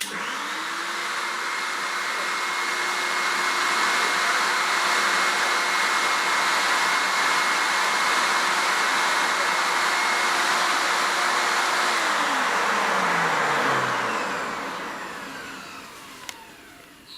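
MIE Ecologico water-filter separator vacuum cleaner switched on, its motor spinning up to a steady whine and running. About twelve seconds in it is switched off and the motor winds down, falling in pitch and fading.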